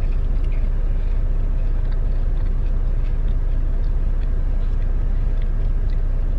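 Steady low rumble of a semi truck's idling diesel engine heard inside the cab, with a few faint small clicks from eating.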